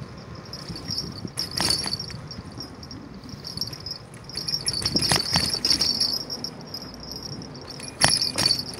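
Bicycle on a city street: the rear freewheel ticks fast and high while coasting, stopping and starting again, with sharp rattles and knocks from the bike as it rolls over bumps. The loudest knock comes near the end.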